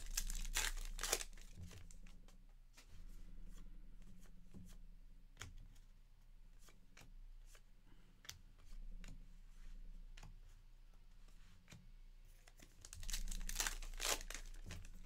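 A foil trading-card pack wrapper being torn open and crinkled, in the first second or so and again near the end. In between come soft clicks and rustles of cards being handled.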